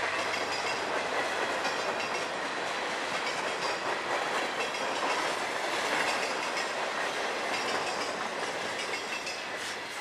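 Freight train's covered hopper cars rolling past, their steel wheels running on the rails in a steady noise that eases slightly near the end.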